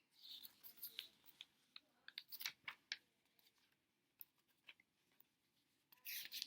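Near silence broken by faint scattered clicks and light rustles, with a short, louder rustle near the end.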